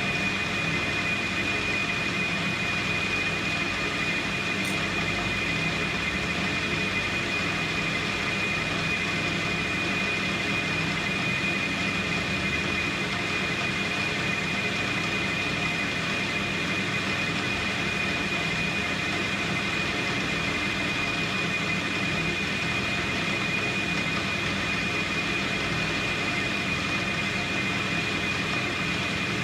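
AL960B metal lathe running steadily under power, with a steady high-pitched whine over an even mechanical hum.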